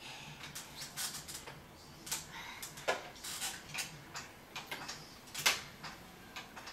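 Irregular small plastic clicks and taps as a toddler's fingers press the buttons and knob on a baby swing's plastic control housing, the sharpest about three and five and a half seconds in.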